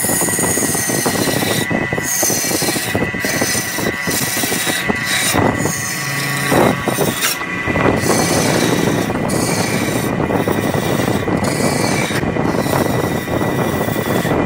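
A gouge cutting into a wooden vase blank spinning on a wood lathe: a steady rough scraping of the tool in the wood, broken by short pauses every second or so, over a constant high whine.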